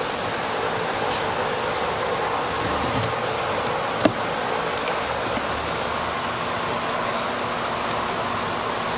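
Corrugated cardboard box being handled and its flaps opened, giving a few short knocks and scrapes, the sharpest about four seconds in, over a steady background hiss.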